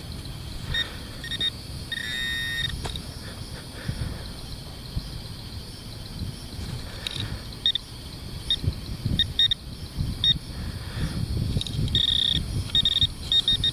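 Metal detector giving short, high-pitched beeps at irregular intervals, with one longer tone about two seconds in and a quick run of beeps near the end, over low rustling and scuffing from digging in soil. The scattered beeps are typical of many small pieces of iron in the hole, as the detectorist suspects.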